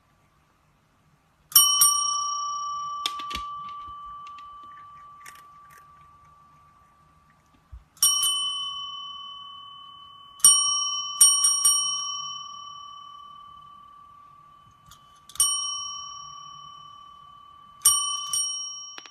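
Chrome desk call bell rung about eight times at irregular intervals, some strikes in quick pairs, each clear ding fading slowly.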